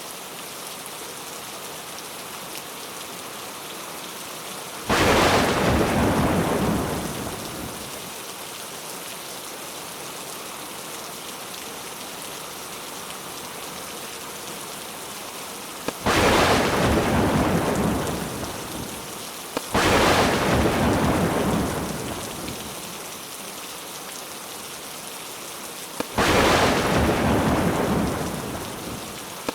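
Steady heavy monsoon rain with four loud claps of thunder, about 5, 16, 20 and 26 seconds in. Each starts suddenly and rumbles away over two to three seconds, and a fifth begins right at the end.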